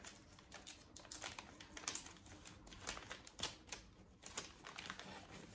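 A plastic zip-top bag being handled: faint, irregular crinkles and light clicking taps.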